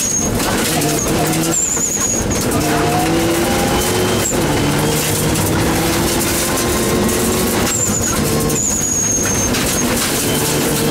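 Mitsubishi Lancer Evo 7 rally car's turbocharged four-cylinder engine heard from inside the cabin, revving hard and rising in pitch through the gears. It is broken by several brief lifts for gear changes, each followed by a high whistle that falls away. Gravel noise from the tyres runs underneath.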